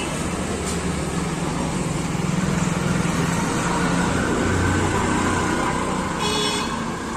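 Motor vehicle and road traffic noise with a steady low hum, and a brief high-pitched beep about six seconds in.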